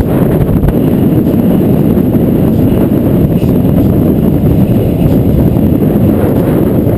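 Heavy wind buffeting on the camera's microphone from a fast bicycle descent: a loud, steady, low rumble with no break.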